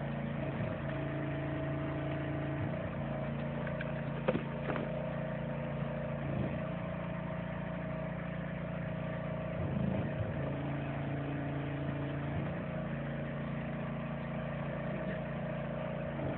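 Engine-driven sewer pipe-pulling machine running steadily as it draws pipe through the main line, with a couple of brief knocks.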